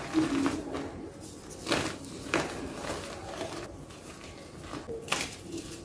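Hands crushing blocks of black-dyed gym chalk filled with white paste: soft, dusty crumbling with a few sharper crunches, near the start, twice around two seconds in and again near the end.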